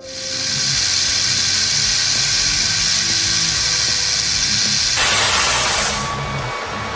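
Compressed-air jet hissing steadily as it is blown at a giant steel fidget spinner to spin it up. About five seconds in, a louder, fuller rush of air lasts about a second, then the hiss eases off.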